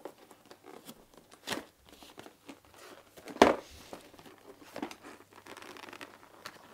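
Cardboard box being opened by hand: scattered rustling, scraping and tearing of cardboard, with a sharp loud snap about three and a half seconds in. The inner box sits tightly in its cardboard sleeve.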